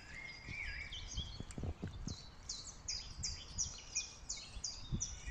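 Small songbirds calling and singing, with one bird repeating a quick series of short high notes, about three or four a second, from about two seconds in to near the end. A few soft low knocks and rustles sound close by.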